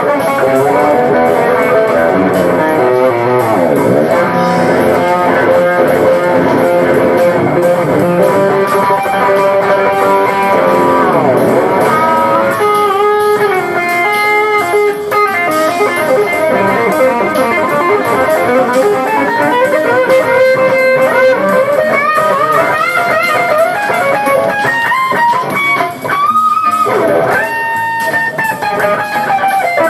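Jazz fusion instrumental music: an electric guitar plays melodic lines over a bass guitar.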